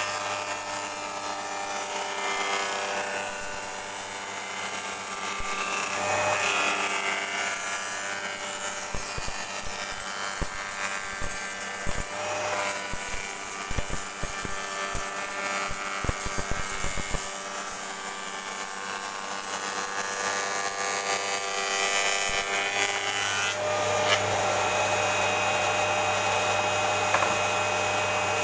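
Spindle moulder running with a steady machine hum as its cutter shapes wood, with a run of sharp knocks and clicks through the middle; the cutting noise grows louder near the end.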